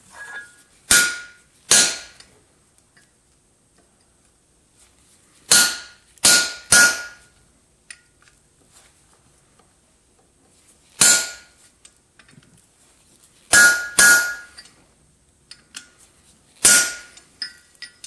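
A hammer striking a center punch held on hot iron on an anvil, punching the eye and nose marks: about nine sharp blows in ones, twos and threes, each with a short metallic ring, and a few lighter taps near the end.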